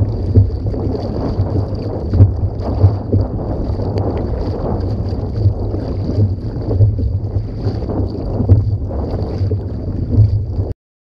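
Sea kayak being paddled on open water, with water splashing off the paddle blades and washing along the hull under heavy wind buffeting on the microphone. A faint steady high whine runs underneath, and the sound cuts off suddenly near the end.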